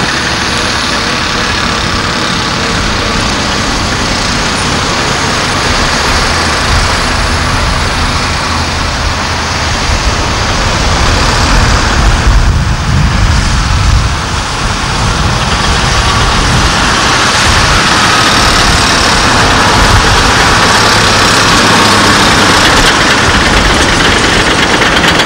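Mercedes-Benz SK 3535 dump truck's V8 diesel engine running as the loaded 8x4 tipper drives across the site, with a steady rush of noise around it; it gets louder about halfway through.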